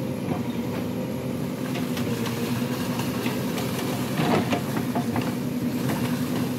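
Backhoe loader's diesel engine running steadily under load as its hydraulic arm digs and dumps earth, with light clatter and a brief louder scraping noise about four seconds in.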